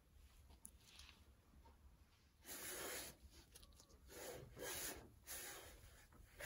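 A cloth rubbing over the washing machine's front panel around the door opening in several short wiping strokes, starting about two and a half seconds in.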